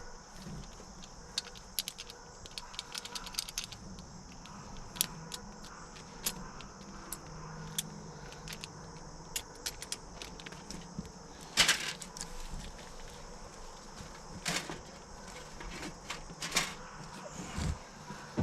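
Scattered metallic clinks and taps of tools and fittings being handled while line-set connections are made up, in irregular clusters with a few sharper knocks in the second half.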